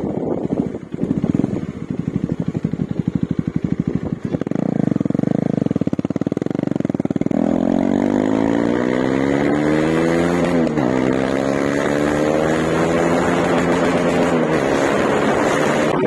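KTM Duke 250 BS4's single-cylinder engine running with its exhaust silencer removed, unmuffled and loud from the rider's seat. It starts with low, uneven firing pulses, then the pitch rises steadily as the bike accelerates. About ten and a half seconds in the pitch dips sharply and recovers, then keeps climbing.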